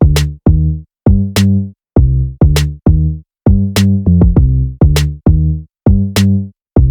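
Electronic background music: a punchy drum-machine beat with deep bass notes, stopping and starting in short hits with full silences between.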